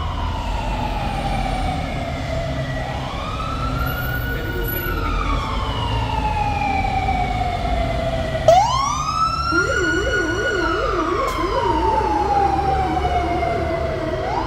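Fire engine sirens wailing, each slowly rising and falling in pitch. About eight and a half seconds in, a second, closer siren starts with a short loud blast and sweeps up, joined by a low, fast-cycling warble underneath, over a low rumble of heavy engines.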